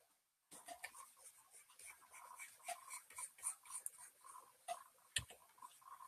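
Faint, clunky scratching and tapping of a stylus stroking across a graphics tablet while painting. It starts about half a second in and runs as a dense patter of small clicks, with one sharper knock about five seconds in.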